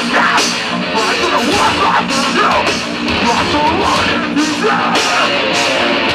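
Live metalcore band playing loud through a festival PA, heard from within the crowd: distorted electric guitars, drums and vocals.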